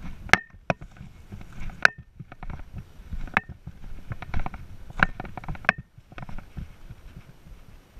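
Irregular sharp clicks and knocks, a few with a brief ring, over a low rustle: footsteps and handled gear of someone moving through rocky desert brush.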